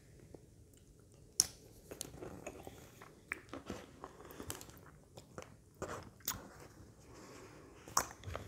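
A person chewing and eating a forkful of food close to the microphone, with scattered sharp clicks and taps.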